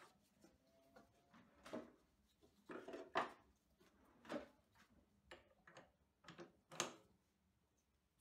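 A scattering of faint clinks and knocks from metal tooling being handled at a stopped metal lathe, about ten in all at irregular intervals.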